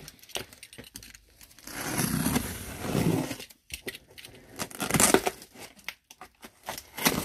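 Cardboard box being opened and unpacked by hand: irregular rustling, scraping and tearing of cardboard and packing material, with scattered sharp clicks and knocks and a louder rustle about five seconds in and again near the end.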